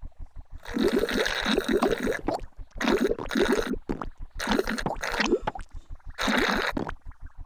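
Comic sound effect of a character noisily drinking juice through a straw: four loud bubbly, gurgling slurps. Under them runs a low, even pulsing at several beats a second.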